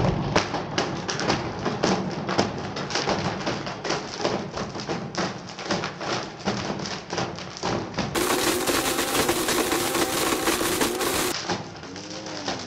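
Blendtec blender running at full speed with a Nokia 3310 mobile phone inside: hard plastic and metal fragments clatter and smash against the jar in a rapid, dense rattle as the phone is ground to black powder. A few seconds past the middle the motor's steady tone comes through more clearly, and near the end the clatter is quieter.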